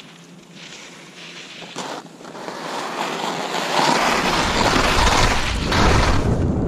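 Skis hissing and scraping over snow on a downhill run, getting louder as speed builds, with wind buffeting the microphone from about four seconds in.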